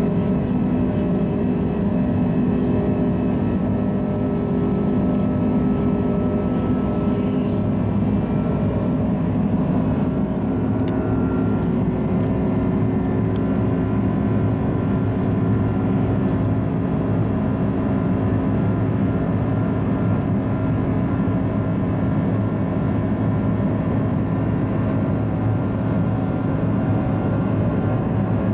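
Steady cabin noise inside an Airbus A330 airliner in its climb: a constant low drone of engines and airflow, with a few steady engine tones on top.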